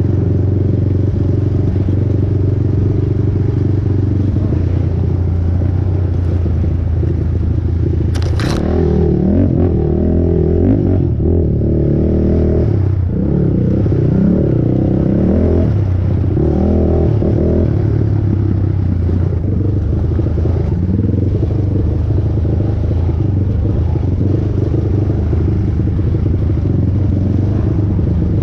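450cc single-cylinder four-stroke race ATV engine running hard through trail riding, its revs rising and falling with throttle and gear changes. A sharp clack about eight seconds in.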